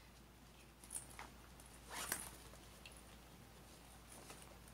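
Faint rustles and light clicks of a fabric hip pouch and its nylon seatbelt-webbing strap with plastic buckle being handled, a few soft noises about one and two seconds in, otherwise near silence.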